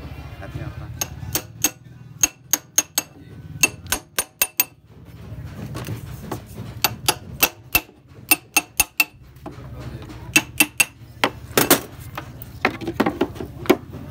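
Metal being tapped with a hammer: quick clusters of about four sharp strikes, repeated every second or two, each ringing briefly, over a steady low hum.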